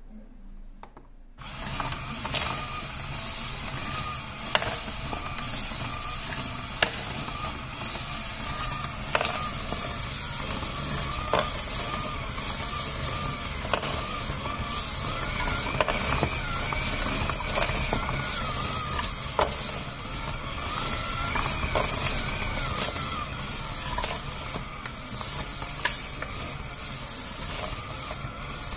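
Rotary tumbler polisher starting a little over a second in: a small geared DC motor turns the clear plastic drum, and the gray granular polishing media inside slides and cascades as a steady rushing noise with scattered clicks.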